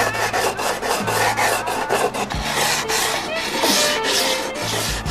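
A sanding block is rubbed quickly back and forth along the edge of a fiberglassed wooden canoe paddle blade, making a continuous run of rasping strokes, several a second.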